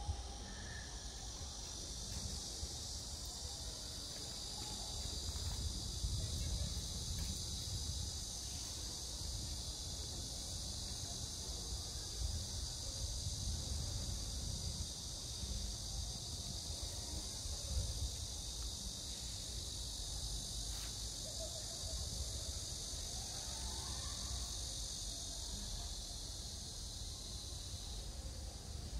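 A steady, high-pitched chorus of insects calling without a break, fading near the end, over a low rumble.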